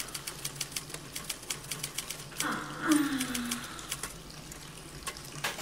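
Rapid, even clicking, about five a second, of a finger rubbed back and forth across the teeth in a mimed tooth-brushing, with a short vocal hum falling in pitch about two and a half seconds in.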